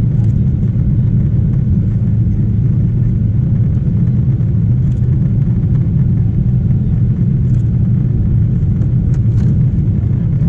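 Steady low rumble of a Boeing 777-300ER's GE90 engines and rushing air, heard inside the cabin during the climb after takeoff.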